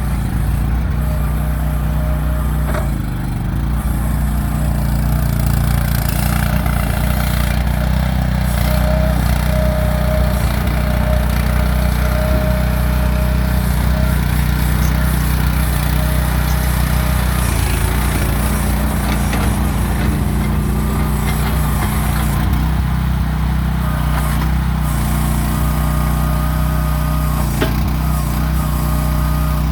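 Small gasoline engine of a MIVA VA13C mini excavator running steadily, with a thin higher whine that comes and goes over it.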